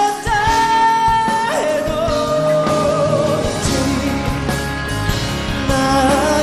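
A male voice sings a slow Korean ballad live over a backing band, holding long notes. The band's low end fills out about two and a half seconds in.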